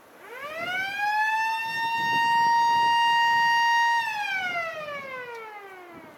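Blast warning siren winding up, holding a steady wail for about two seconds, then winding down again. It is the warning signal before firing a 20-hole rock blast.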